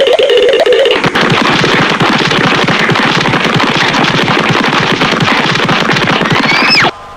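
Cartoon sound effect: a dense, very rapid rattle like machine-gun fire lasting about six seconds. It ends in a quick rising whistle and cuts off suddenly.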